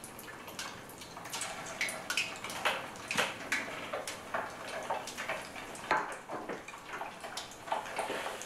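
Almond-coated shrimp balls deep-frying in hot oil in a wok: a steady sizzle with irregular crackles and pops, which grows louder about a second in.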